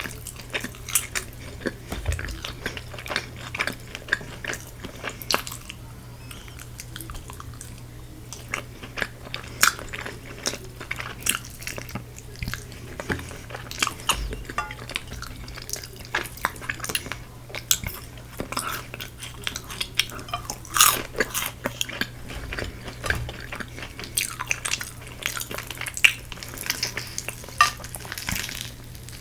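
Close-miked chewing and crunching of Korean fried chicken's crisp coating, with scattered clicks of tableware, over a steady low hum.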